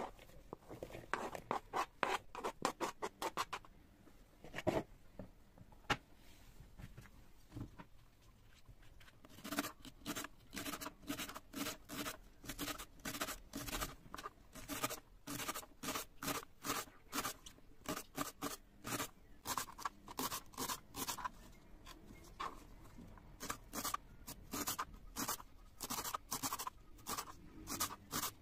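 Kitchen knife slicing through fresh leeks onto a plastic cutting board: a run of crisp, even cuts, with a few scattered cuts and a lull early on before a steady chopping rhythm settles in.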